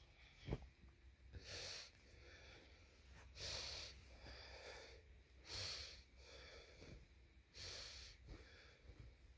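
A person breathing close to a phone microphone, a hissy breath about every two seconds. There is a short knock about half a second in.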